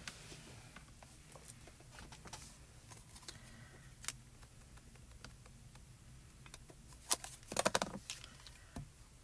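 Quiet handling of rubber-stamping tools, an ink pad against the stamp and the stamping platform. Soft taps and clicks are scattered through, with a sharp click about seven seconds in, a short cluster of louder knocks right after it, and a single thump near the end.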